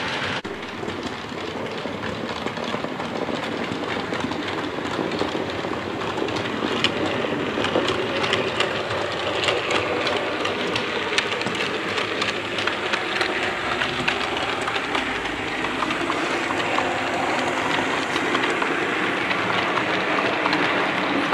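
A train running along the rails: a steady rumbling hiss with many small, irregular clicks of wheels on the track.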